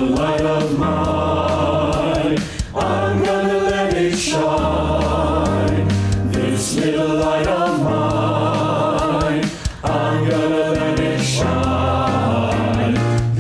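Mixed choir of men and women singing a hymn together in harmony, with vibrato audible in the upper voices. The voices were recorded separately and blended into a virtual choir. The sustained phrases break briefly twice, at breaths.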